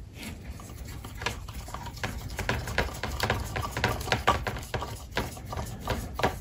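Small hand screwdriver turning a screw in to mount the latch assembly: a run of irregular scraping clicks as the screw bites and tightens, coming more often from about two seconds in.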